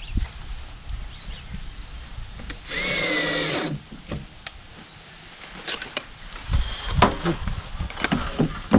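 Cordless drill driving a screw into the wooden door for about a second, about three seconds in, its motor whining steadily. After it come a series of sharp wooden knocks and clunks, loudest near the end.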